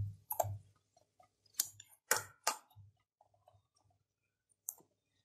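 Metal spatula knocking against a metal kadai while stirring chopped onions and tomatoes: about five sharp clinks at uneven intervals.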